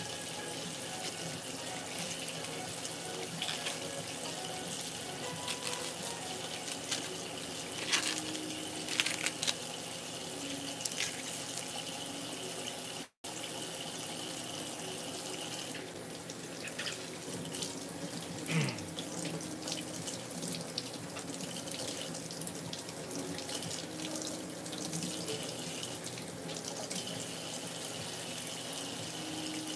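Steady rush of running water in a kitchen, with a few light knocks and clatters about a quarter of the way in and again past the middle.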